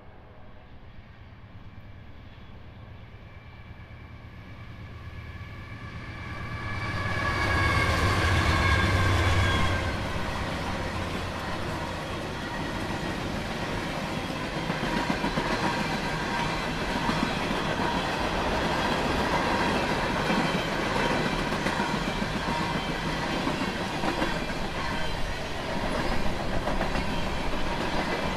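Norfolk Southern freight train passing. The lead diesel locomotive's horn sounds as it approaches, its pitch dropping as it goes by, and the locomotives' engine rumble is loudest about eight seconds in. The horn stops about ten seconds in, and a long string of freight cars follows, rolling steadily along the rails.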